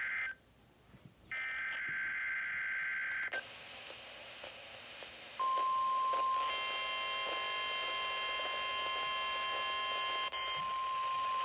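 NOAA Weather Radio SAME digital header over the air: the tail of one buzzy, warbling data burst, about a second of quiet, then another burst of about two seconds. After a little radio hiss comes the steady 1050 Hz warning alarm tone, starting about halfway through. For a few seconds a cluster of other steady tones sounds along with it.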